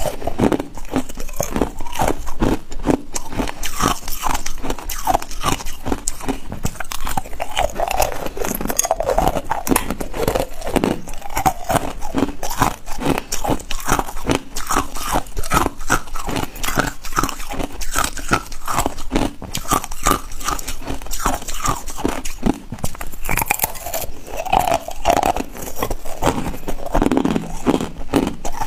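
Ice being bitten and chewed: a continuous, rapid crunching and crackling of ice breaking between the teeth.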